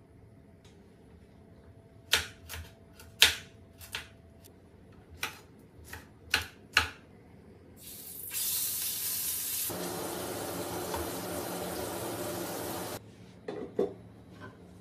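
Kitchen knife chopping on a cutting board: about nine uneven sharp strokes. Then a steady hiss runs for about five seconds and cuts off suddenly, and a few lighter knocks come near the end.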